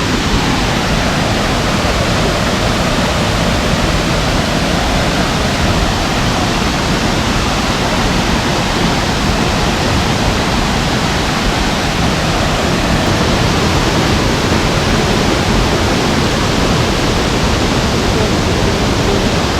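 Waterfall's falling water: a loud, steady rush.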